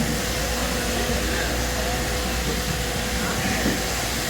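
Electric sheep-shearing machines running steadily, a constant motor hum with a hissing whir.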